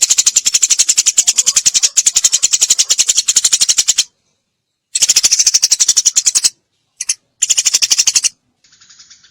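Eurasian tree sparrow chirping in rapid-fire runs, about ten chirps a second. The runs break off briefly about four seconds in and again around six and a half and seven seconds, and quieter chirps come near the end.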